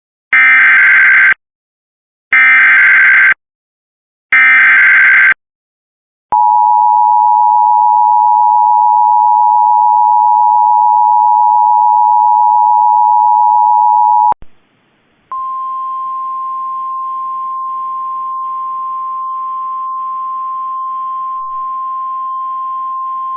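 Emergency Alert System tones for a severe thunderstorm warning: three one-second bursts of raspy digital header data, then the two-tone attention signal held steady for about eight seconds. After a second's pause comes a single steady higher tone with faint hiss beneath: the NOAA Weather Radio warning alarm tone, running about nine seconds.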